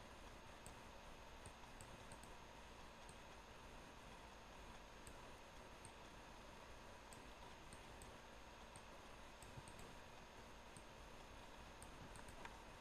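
Near silence: faint steady hiss with soft, irregular computer mouse clicks, roughly one every half second to second.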